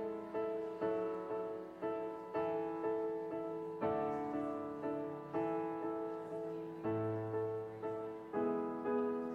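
Piano music: notes and chords struck at an even pace, about two a second, each one fading away before the next.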